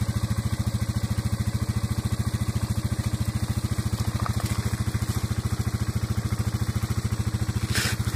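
An engine idling steadily, with an even, rapid throb.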